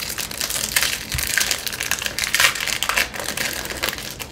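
Crinkling and crackling of a sealed plastic trading-card pack wrapper as it is handled, a run of many small rustling clicks.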